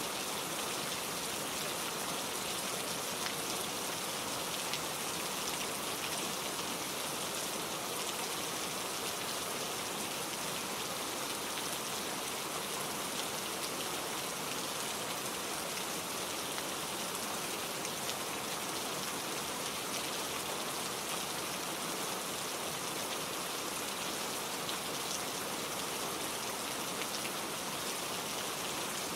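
Steady rain falling, an even hiss with scattered taps of individual drops.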